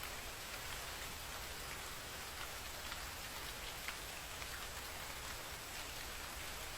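Steady rain falling: an even hiss of rainfall with a few louder drops ticking now and then.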